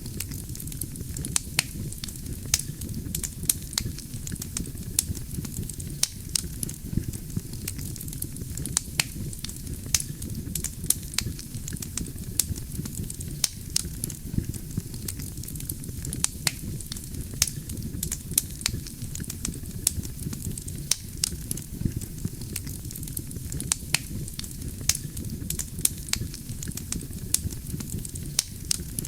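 Wood campfire burning steadily: a low rumble of flames with frequent sharp crackles and pops of burning logs.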